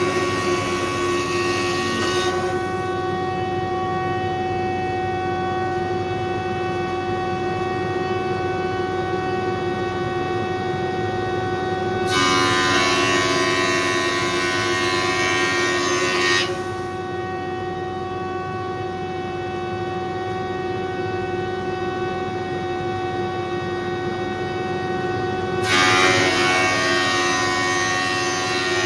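20-inch Powermatic thickness planer running with a steady hum, growing louder and harsher three times as the cutterhead bites into a red oak board: near the start, for about four seconds from about 12 s in, and again near the end.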